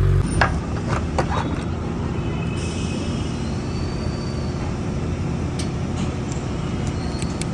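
Suzuki Hayabusa Gen3's inline-four engine idling steadily on its stock exhaust, with a few sharp clicks in the first second and a half.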